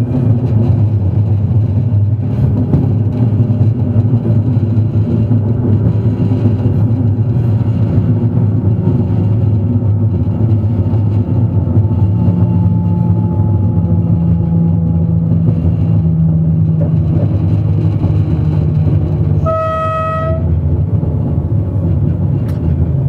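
TGV high-speed train running, heard from the driver's cab as a steady low rumble, with a low steady hum joining about halfway through. About three-quarters of the way in, a short pitched tone sounds once for about a second.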